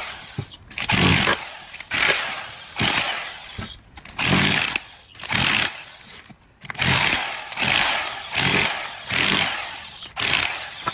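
A power drill run in about ten short bursts, roughly one a second, while taking apart an electric motor. Each burst starts suddenly and dies away within about half a second.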